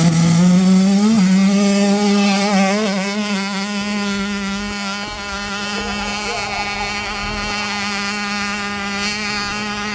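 Hill-climb motorcycle engine held at high revs under full throttle, a steady high-pitched drone that climbs a little in pitch about a second in and then holds.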